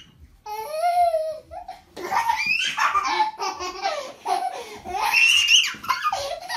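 Laughter and giggling, with a young child's high squeal. A drawn-out squeal comes about half a second in, and steady laughing runs from about two seconds on.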